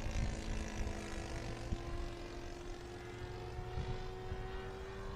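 A radio-controlled model airplane's engine and propeller running with a steady drone, its pitch rising slightly in the second half.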